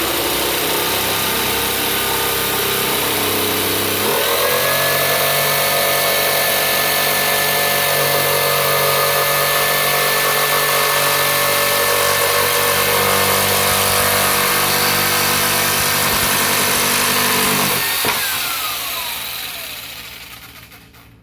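Skil 4295-RT corded 4.5-amp jigsaw running and sawing a cut, its motor's pitch stepping up about four seconds in. Near the end the trigger is released and the motor winds down with a falling whine.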